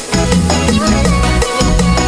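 Upbeat background dance music with a steady beat and strong bass.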